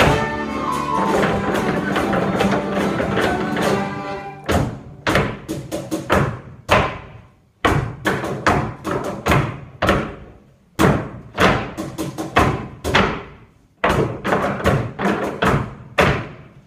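A folk ensemble of guitars and fiddles playing, then about four seconds in the tune drops out and only rhythmic percussive hits carry on, in quick phrases with short breaks between them.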